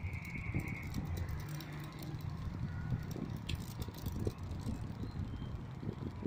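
Electric stand fan running, its air stream buffeting the microphone as a steady low rumble while two foil toy pinwheels spin in the draught.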